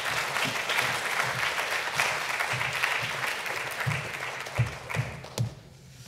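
Audience applauding, dying away near the end, with a few soft thumps as it fades.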